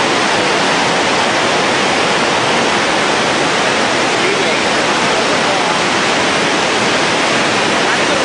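Floodwater from a swollen mountain river rushing steadily, a loud, unbroken noise of fast, turbulent water.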